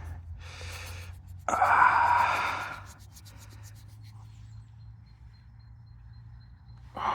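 A man breathes out hard, a loud rush of breath about a second and a half in and another near the end, over a faint steady low hum.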